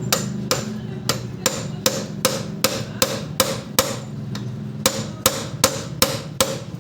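Hammer tapping steadily, about two to three sharp blows a second, knocking the camshaft out of a motorcycle cylinder head.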